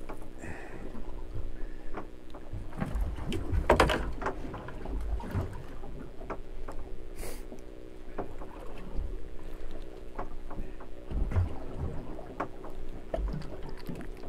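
Water slapping against the hull of a small drifting fishing boat, with scattered knocks of gear on the deck and a louder clatter about four seconds in.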